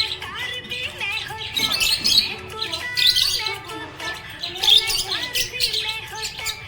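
Budgerigar chirping and warbling in quick clusters of high chirps, every second or so, over background music with steady held notes.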